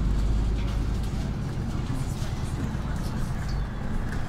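Ride noise inside a moving city bus: a steady low rumble from the engine and the road.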